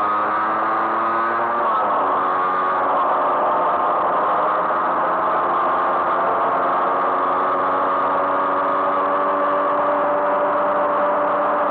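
A vintage two-stroke moped engine running under way, heard from the rider's own seat. Its pitch drops about two seconds in, then holds nearly steady.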